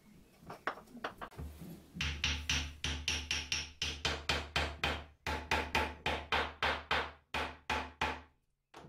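Small hammer tapping rapidly on the metal pins of a knife handle, peening them over to rivet the wooden handle scales to the tang. After a few scattered taps, steady strikes of about four a second begin about two seconds in and stop shortly before the end.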